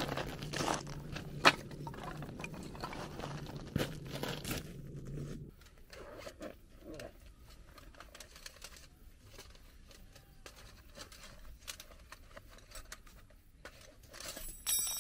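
Crunching and clicking handling noises on a river-pebble bank: footsteps on the stones and firewood being handled for the first five seconds or so, then quieter rustling and crinkling as gloved hands handle cloth.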